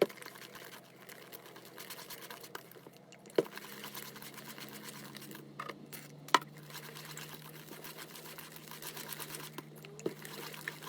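Slime being stirred in a bowl after borax activator is added: a steady run of soft scraping and squishing, with three sharp knocks of the utensil against the bowl, at the very start, about three seconds in and about six seconds in.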